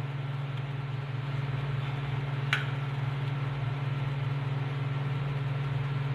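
Steady low machine hum, with one short sharp click about two and a half seconds in.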